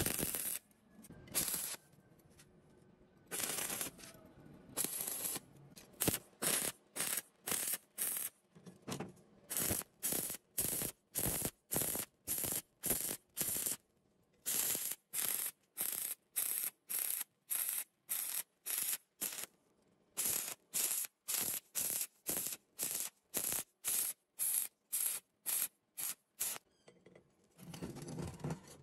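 Stick welding on steel plate in short pulses: the arc is struck and broken again and again, a few longer bursts at first, then about two short bursts a second, each with a quiet gap, as the weld is laid in a row of short beads.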